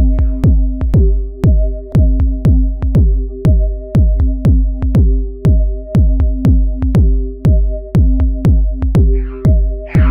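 Electronic dance music with a steady drum-machine beat of kick drums dropping in pitch, over sustained synth notes.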